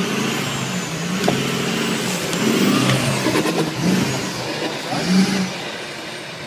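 Off-road 4x4 pickup truck's engine revving hard, the revs surging and dropping several times as it climbs a steep dirt bank, with a rush of noise from tyres spinning in loose dirt.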